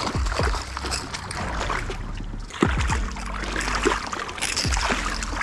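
Hooked striped bass thrashing and splashing at the surface in shallow water at the bank, with irregular sloshing and a sudden louder hit about two and a half seconds in.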